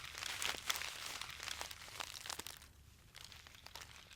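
Brown paper bag filled with birdseed crinkling as it is handled, a dense crackle that thins to fainter, scattered crackles after about two and a half seconds.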